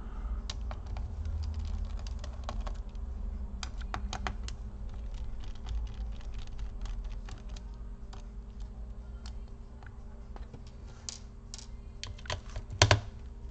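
Light, irregular clicks and taps of a small screwdriver working out the heatsink screws of an Acer Nitro AN515-54 laptop, with a few louder clicks near the end.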